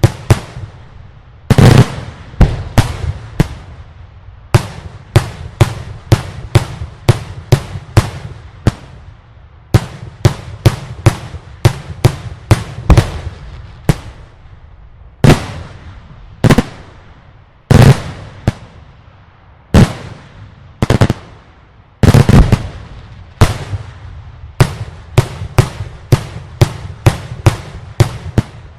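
Daylight fireworks display: rapid volleys of very loud aerial shell bursts, several bangs a second, with heavier single blasts now and then and echo after each.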